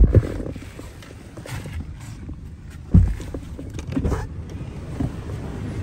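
Low vehicle rumble heard from inside a car cabin, with a few thumps: a loud one right at the start, a sharp one about three seconds in, and softer ones after.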